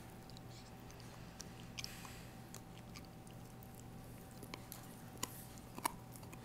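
Rottweiler puppy chewing a rawhide: irregular wet crunches and clicks, the two loudest near the end.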